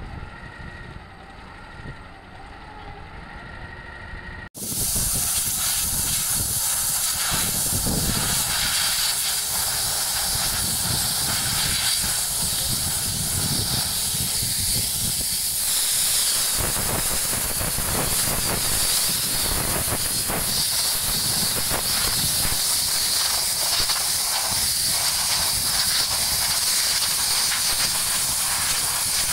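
Compressed air hissing loudly and steadily from a hand-held air hose blowing dust and debris off the rebar mesh and formwork of a bridge deck slab. It cuts in suddenly about four and a half seconds in, after a quieter stretch of construction machinery running.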